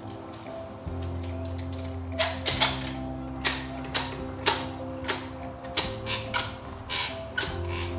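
Adhesive dispensing gun clicking sharply and irregularly, about two clicks a second from about two seconds in, as its trigger is squeezed repeatedly to push two-part stone adhesive out through the mixing nozzle. Background music plays throughout.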